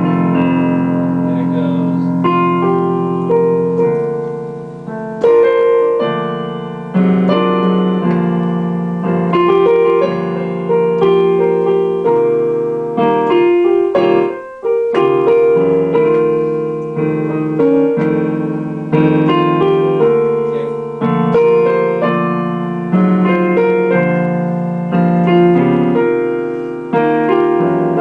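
Solo relaxed blues played on an electronic keyboard with a piano sound: chords and melody notes struck and left to ring and fade, with a brief pause about halfway through.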